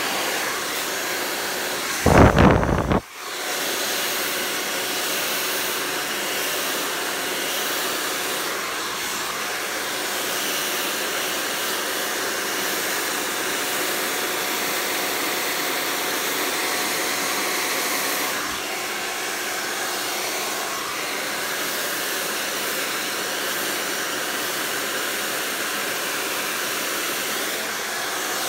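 Handheld hair dryer blowing steadily while hair is blow-dried with a brush. About two seconds in there is a loud rumble lasting about a second, then a brief dip before the steady blowing resumes.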